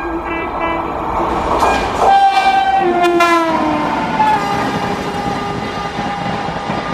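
Indian Railways express train passing at high speed with its horn blowing continuously over the rush and rattle of the coaches. About two to three seconds in the horn grows louder and its pitch drops as the locomotive goes by.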